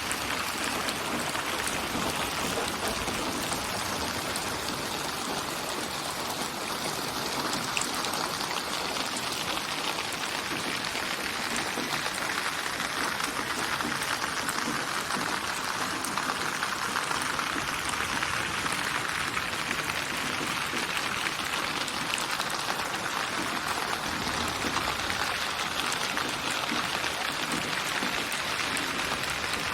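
Steady, dense rain used as white noise, a continuous hiss of falling drops whose tone drifts slowly lower and higher over many seconds.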